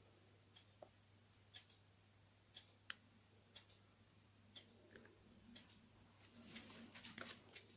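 Near silence: faint, sharp ticks about once a second, and near the end a soft rustle of paper as a hand takes hold of a journal page.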